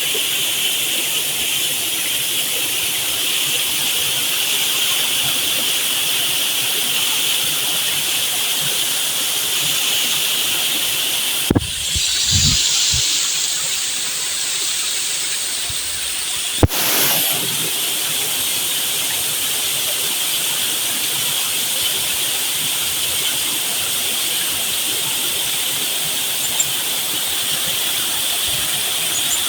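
Steady rushing noise of flowing water, broken by two abrupt cuts about eleven and sixteen seconds in.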